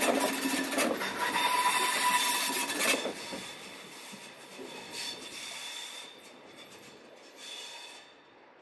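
SBB ETR 610 Pendolino-type electric train running past, its wheels clattering over the rails and points with many sharp clicks; about three seconds in, the last car goes by and the sound drops away, fading into the distance with a faint wheel squeal.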